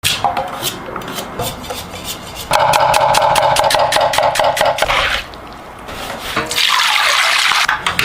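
Kitchen water running and splashing in two loud spells, with rubbing and clicking from handling in between.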